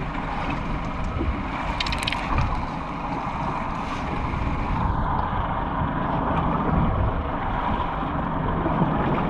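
Wind buffeting the microphone and water washing against the hull of a boat drifting at sea, a steady rushing noise. A brief patter of clicks comes about two seconds in.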